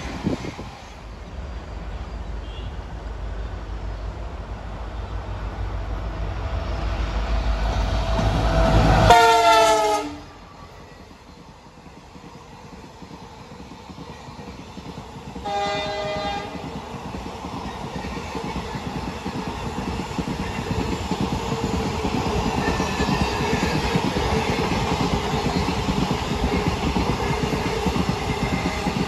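Trains passing: a low rumble swells up to a loud locomotive horn blast, its pitch falling slightly. A shorter, steady horn blast sounds about seven seconds later. Then the rumble and wheel clatter of express passenger coaches running past close by fill the rest.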